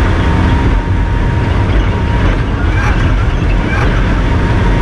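Cockpit noise of a MINI John Cooper Works Buggy driven at speed on a gravel track: the engine running hard over a steady rumble of tyres and wind, with a few brief clatters about two, three and four seconds in.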